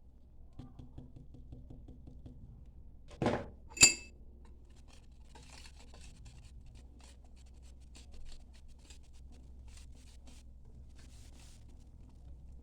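Kitchen utensils handled against a bowl: faint ticking, then a dull knock and a louder ringing clink about three to four seconds in, followed by many light scattered clicks and scrapes.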